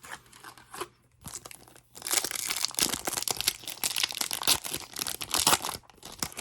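Trading-card pack wrapper crinkling and being torn open. A few faint clicks come first, then dense crackling from about two seconds in.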